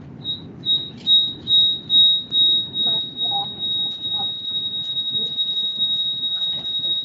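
A high-pitched electronic tone, beeping about twice a second at first and then, from about three seconds in, held as one steady whistle.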